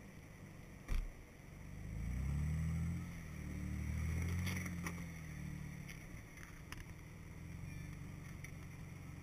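A 4x4's engine working in low gear as it crawls over snowy rock, revving up twice and then settling to a steadier lower run. A sharp knock about a second in.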